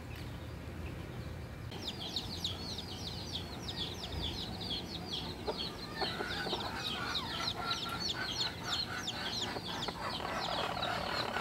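Chickens calling: a fast run of short, high peeping chirps, several a second, starts about two seconds in, and lower clucking joins from about the middle.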